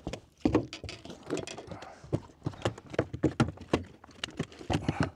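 A landed bass flopping on a boat deck, a rapid, irregular run of knocks and slaps that stops abruptly near the end.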